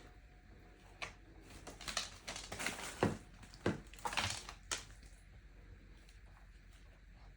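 A run of crunching and crinkling noises, clustered between about one and five seconds in.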